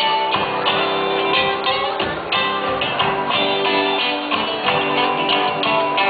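Live band playing an instrumental passage of an Argentine folk song on acoustic and electric guitars, a stream of plucked and strummed notes with no singing.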